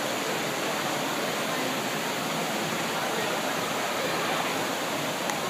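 Steady rushing noise, like running water, with faint voices underneath.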